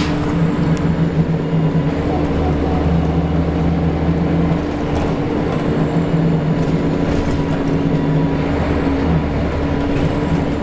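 Scania L94UB bus's nine-litre five-cylinder diesel engine running steadily under way. The engine note changes briefly about halfway through, then settles again.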